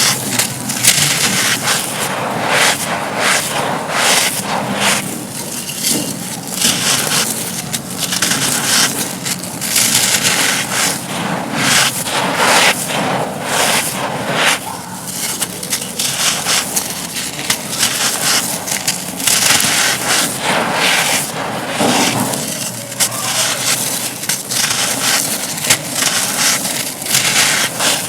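Dry, brittle chalky cones being crushed and crumbled, giving a dense, continuous crisp crunching and crackling with gritty scraping.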